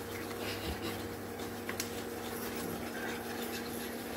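Wooden chopsticks scraping and stirring against the bottom of a stainless steel pot, working sugar into hot oil to melt it for caramel colouring. A steady hum from the running induction cooktop sits underneath.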